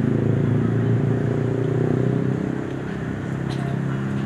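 A motor vehicle's engine running, a steady low drone that eases off about two and a half seconds in.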